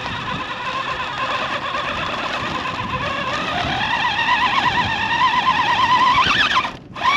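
Electric motor and gear drivetrain of an RC scale rock crawler whining under throttle, its pitch wavering as the tyres spin and scrabble on lichen-covered rock without gripping. The whine climbs in pitch over the second half, revs up quickly, then cuts off near the end.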